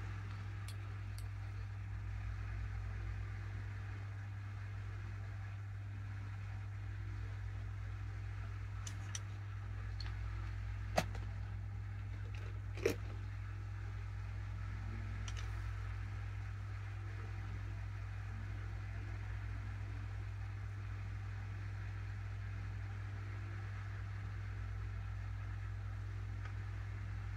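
Quiet room tone with a steady low hum. A couple of small sharp clicks come about two seconds apart, just before halfway through.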